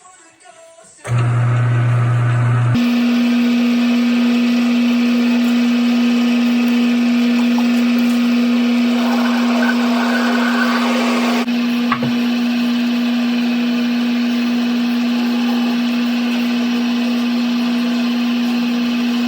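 Electric motor of a machine tool running with a steady hum. It comes in abruptly about a second in and shifts to a higher steady pitch about three seconds in, with a brief click around twelve seconds.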